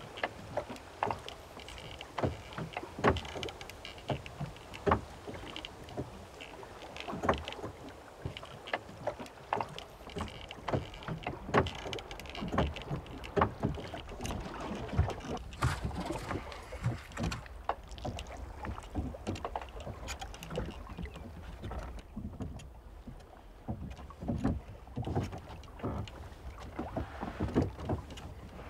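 Water lapping and slapping irregularly against the hull of a small sailing boat, with scattered knocks, over a steady low wind rumble.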